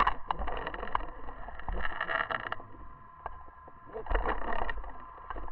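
Underwater sound from a submerged camera: a steady high hum, under three bursts of crackling, rubbing noise at the start, around two seconds in and about four seconds in.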